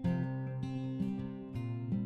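Background music: a strummed acoustic guitar playing chords in a steady rhythm, about two strums a second.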